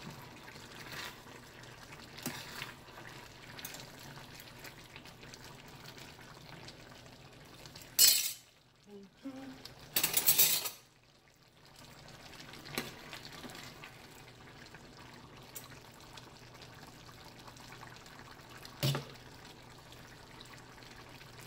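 Metal ladle scooping chunky curry chicken stew out of a stainless-steel skillet and into a pie crust, with scattered light clinks of metal on metal. Two louder brief noises come about eight and ten seconds in.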